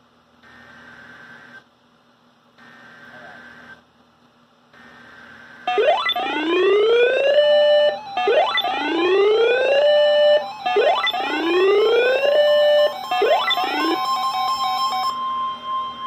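Weather radio alert: three faint data bursts about a second apart, then the radio's alarm siren, a loud rising whoop repeated four times about every two and a half seconds, with a steady tone near the end. The siren signals that a new severe thunderstorm warning is coming in.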